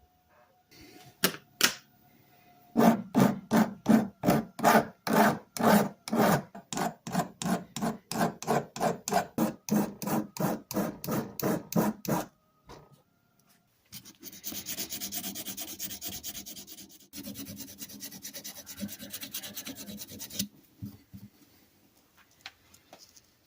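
Hand abrading of rusty tool metal: a run of quick back-and-forth strokes, about three a second, then a steadier stretch of scrubbing after a short pause.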